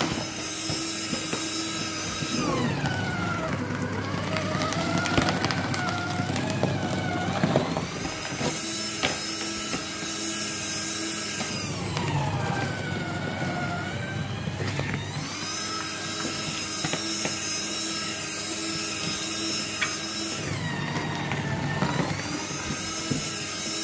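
Electric shredder motor running and chewing through cardboard boxes, its whine sagging in pitch under load three times and climbing back between.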